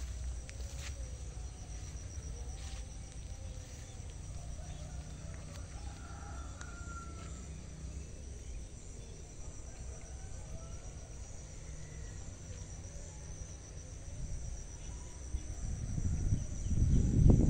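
Insects chirring in a steady, high, faintly pulsing tone over a low rumble of wind on the microphone. The rumble swells loudly near the end.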